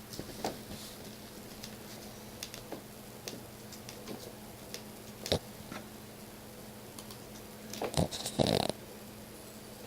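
Domestic cat snoring: one loud snoring breath about eight seconds in, over a steady low hum, with a few faint clicks before it.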